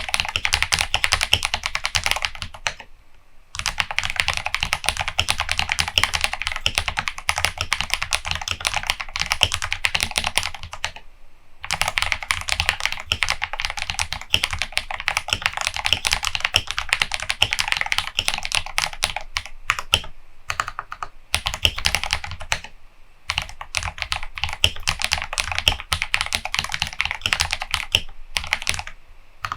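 Typing on a custom KBD67 Lite R2 mechanical keyboard fitted with tactile Holy Panda switches and XDA-profile Milk Honey keycaps: dense runs of keystroke clacks, broken by a few short pauses.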